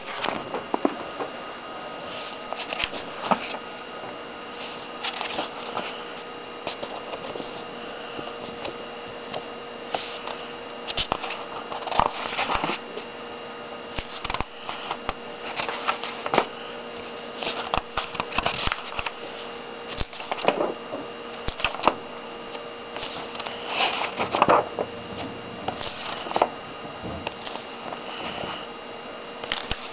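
Paper comic-book pages being handled and turned: irregular rustles and flicks of paper, busiest in bunches around the middle and later on, over a steady faint hum.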